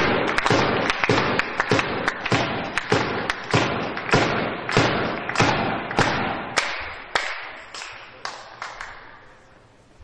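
Spectators clapping in a steady rhythm, about three beats a second, dying away near the end.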